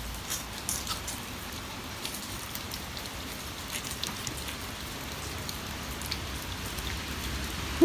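Steady outdoor hiss with faint, scattered ticks as a filleting knife slices a fish fillet away from the rib bones.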